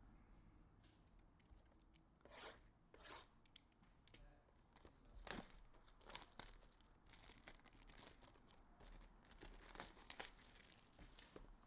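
Trading-card pack wrappers being torn open and crinkled by hand, in a series of short, quiet crackling rips and rustles.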